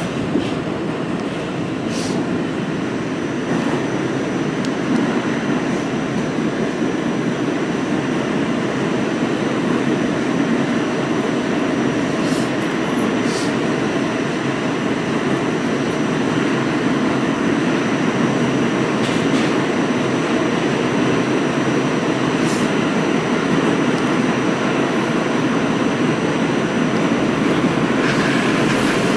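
Inside an R46 subway car running between stations: a steady, loud rumble of wheels and running gear, with a thin high whine throughout and a few sharp clicks scattered through it, growing slowly louder.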